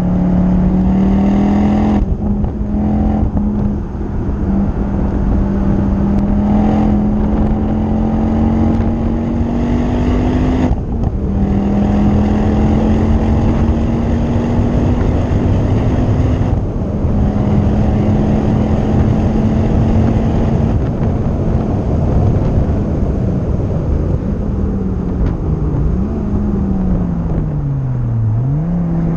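Ford Focus ST's 2.5-litre turbocharged five-cylinder engine at high revs under hard driving on track, its pitch creeping up along a straight with a few brief breaks. Near the end the revs fall steeply as the car slows, then pick up again.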